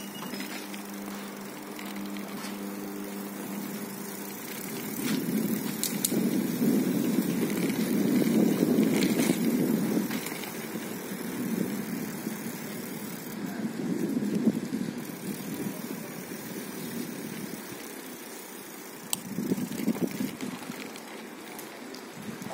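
Street traffic: a car engine's steady hum at first, then a rumbling swell that builds to its loudest about eight seconds in and fades away, as of a car driving past, with fainter rumbling swells later.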